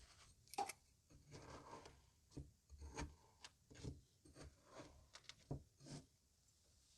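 Faint crunching and scraping of kinetic sand being cut, about ten short strokes over six seconds.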